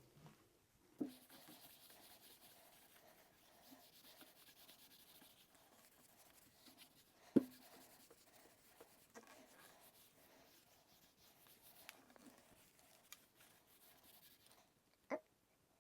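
A cloth rubbing oil into a wooden rifle stock: a faint, continuous scratchy rubbing, broken by a few light knocks of the rifle being handled, the loudest about halfway through and another near the end.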